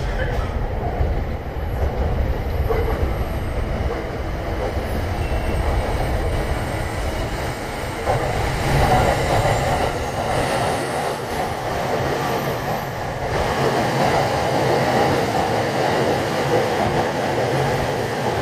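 Electric train running through the station, a steady rumble of wheels on rails. The deep rumble drops away about ten seconds in while a higher rushing noise grows louder.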